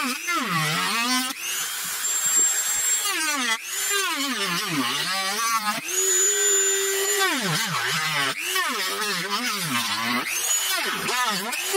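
Handheld power tool cutting through a plastic model ship hull. The motor's pitch keeps dipping and climbing back as it bites into the plastic, with a thin high whine over it. The cut melts the plastic rather than sawing it.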